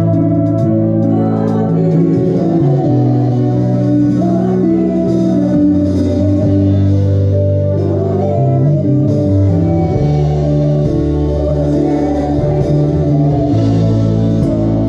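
Live worship band playing: held keyboard chords with drums and cymbals, and voices singing.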